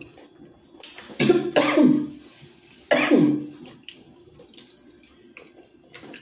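A person's voice making short non-word sounds that fall steeply in pitch, two together about a second in and one more near three seconds in.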